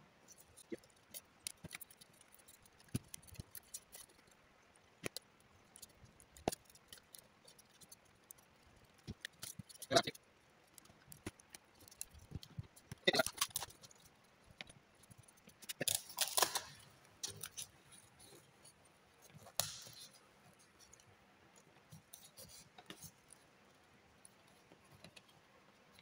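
Faint, scattered clicks, scrapes and rustles of hands working electrical wires and pilot-lamp terminals. The louder clusters come about ten, thirteen and sixteen seconds in.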